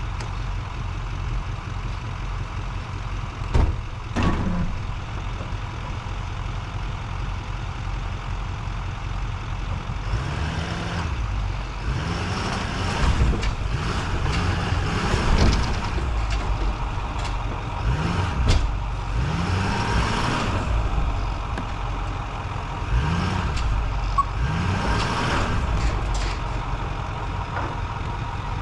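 Truck engine idling, then revved up and back down about ten times in a row, with two knocks about four seconds in. The truck is stuck on an icy driveway and is trying to get traction while another truck pulls it out.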